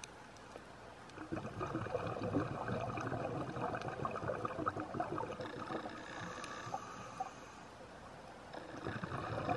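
Scuba diver's exhaled bubbles gurgling and crackling out of the regulator for several seconds, starting about a second in. After a quieter pause for the inhale, the next exhalation starts near the end.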